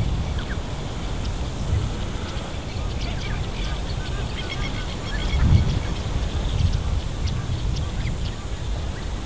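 Black-winged stilts calling, a rapid run of short high notes that crowds together a few seconds in as the flock flies in and settles, over a steady low wind rumble on the microphone.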